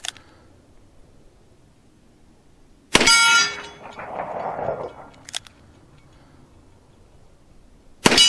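Two shots from a 4-inch Ruger GP-100 revolver firing .38 Special rounds, about five seconds apart. Each shot is followed by a metallic ring from the steel target plate and a long trailing echo.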